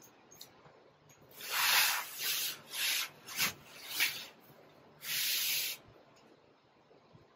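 Hand screwdriver driving a screw into a particleboard cabinet panel: a series of scratchy, rasping strokes, one per twist, with the last a longer one.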